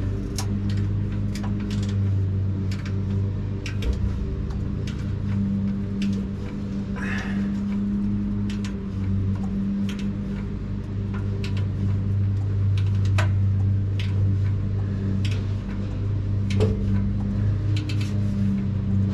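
Irregular metal clicks and clinks of a wrench working the nuts on a truck's exhaust clamp, over a steady low hum.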